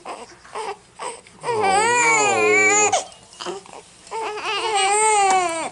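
Four-week-old baby crying: a few short whimpers, then two long wavering wails of about a second and a half each.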